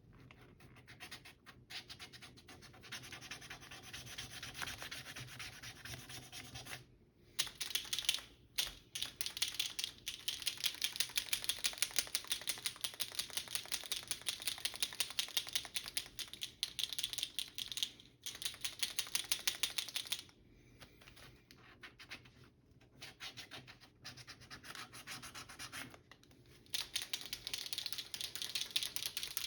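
Sight touch-up paint pen being shaken, its mixing ball rattling in a rapid clicking clatter that comes in runs with short pauses. The shaking mixes the paint before the pen will flow.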